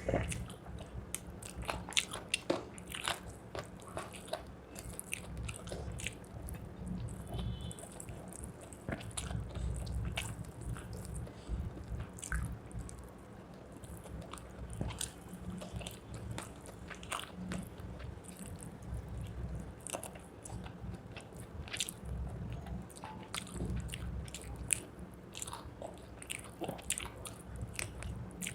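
Close-miked eating: chewing and biting on rice and chicken leg curry, with many irregular wet mouth clicks and smacks.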